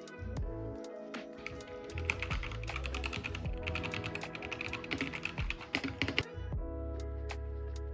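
Fast typing on a DIERYA DK61SE mechanical keyboard: a dense run of key clicks from about two seconds in, stopping about six seconds in, over background music.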